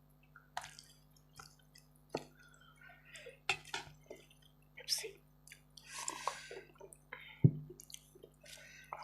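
A person eating chicken curry with rice: wet chewing and smacking sounds with scattered small clicks, and one sharper knock about seven and a half seconds in.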